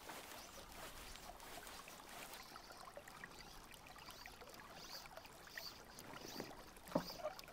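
Faint river water lapping and trickling around an inflatable raft, with a few small knocks near the end.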